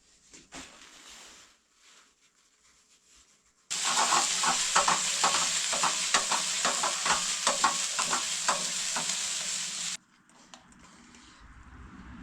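Food sizzling in a hot pan while being stirred, with many quick clicks of a utensil against the pan; it starts suddenly about four seconds in and cuts off abruptly about six seconds later. A few faint knocks come before it.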